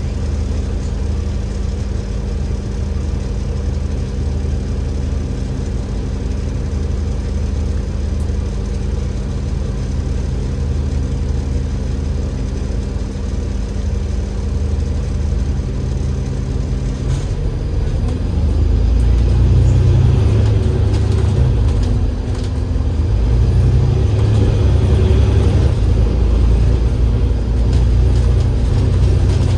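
Cummins L9E diesel engine of an Enviro500 MMC double-decker bus running at a steady note, then a little over halfway through the note changes and grows louder and deeper.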